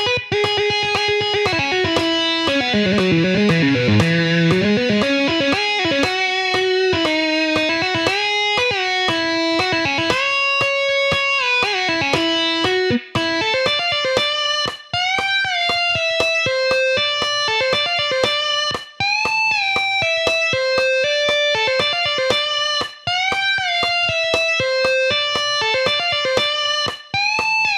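Overdriven electric guitar playing a lead solo line: fast picked runs, including a quick run down into the low strings and back up a few seconds in, then phrases with repeated full-step string bends.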